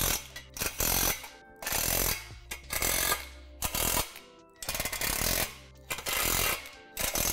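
Cordless impact driver running in a string of short bursts, each under a second with brief pauses between, as it tightens the bolts that fasten the steel rungs to the arch climber's leg.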